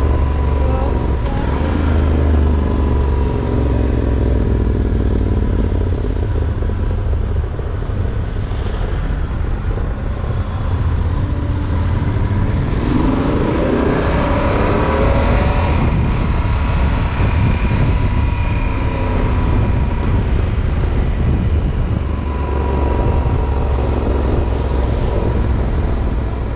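Yamaha Super Ténéré parallel-twin motorcycle under way, its engine running steadily under a constant rush of wind noise. A little past the middle, the engine note rises and falls for a couple of seconds.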